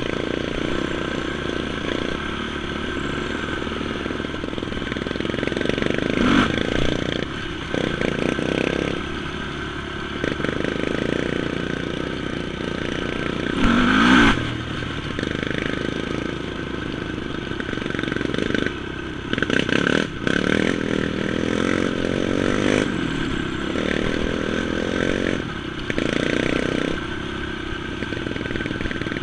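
Honda TRX450 sport quad's engine running as it is ridden along a muddy trail, the pitch rising and falling as the throttle is opened and eased off. There is a brief louder rev about halfway through.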